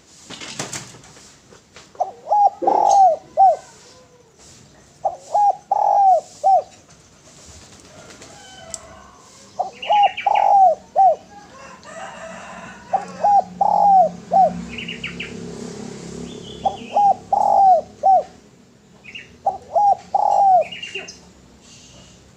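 Spotted dove (derkuku) cooing in phrases of three to five falling notes, about six phrases a few seconds apart. A brief rustle sounds about half a second in, and small birds chirp faintly and high in the background.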